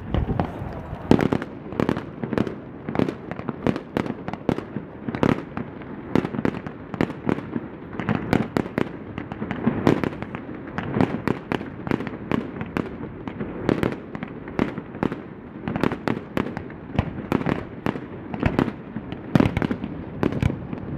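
Aerial fireworks display: a rapid, irregular barrage of shell bursts, several bangs a second with booming echoes and crackle between them.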